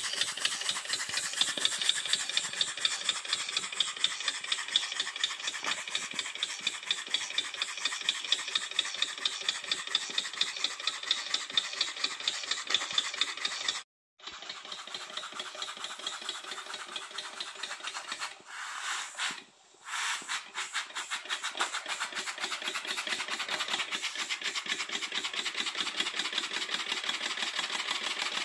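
Alcohol-fired miniature model steam engine running fast: a rapid, even mechanical beat from the piston and valve gear over a steady steam hiss. The sound breaks off for a moment about halfway through and dips again a few seconds later.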